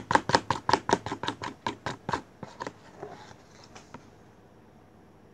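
Plastic spoon stirring runny glue and water in a plastic tub: quick scraping taps against the tub, about five a second, thinning out after about two seconds and dying away soon after.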